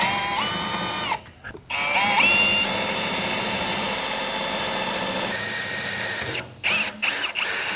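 Milwaukee Fuel cordless drill boring holes into a travel trailer's metal frame rail. The motor whine runs for about a second, stops briefly, then runs steadily for several seconds before breaking into a few short trigger bursts near the end.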